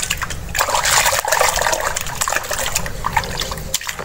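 Water sloshing and splashing as a hand stirs and gropes through a basin of foamy water, loudest from about half a second to two seconds in.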